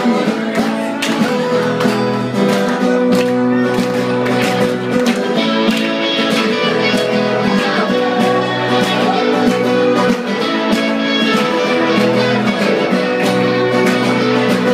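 Live band music: guitars strumming the song's instrumental intro at a steady rhythm before the vocals come in.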